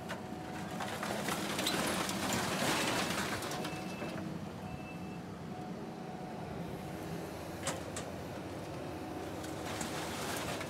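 Kubota skid steer's diesel engine running steadily, louder for a few seconds near the start, with a few sharp clanks of scrap metal.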